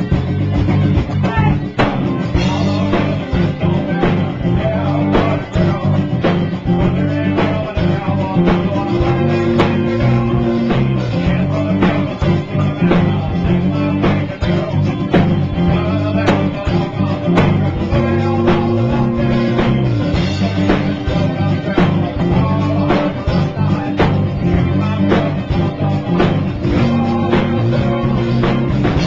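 Rock music with a steady drum beat, bass and guitar.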